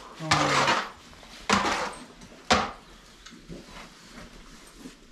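Mucking out under calves: a hand tool scraping manure across the barn floor in three strokes over about two and a half seconds, the last one short and sharp, followed by quieter scattered scuffs.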